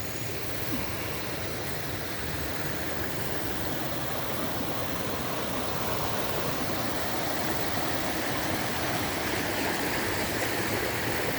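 Waterfall and stream water rushing in a steady, even noise, growing slightly louder near the end.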